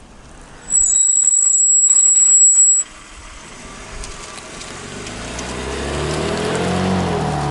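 BMW M3 (G80) M Compound brakes giving a loud, high-pitched squeal for about two seconds that cuts off abruptly. The owner takes the squeal for a defect; the BMW dealer first called it normal for these brakes. Afterwards the car's engine and road noise rise as it pulls away.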